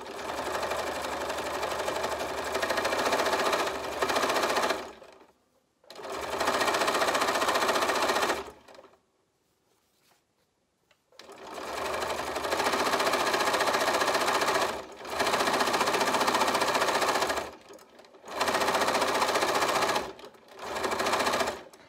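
Bernina Aurora 440 QE sewing machine stitching the coils of a jelly-roll fabric bag together. It runs in several spells of a few seconds, stopping and starting again, with a pause of about two seconds midway.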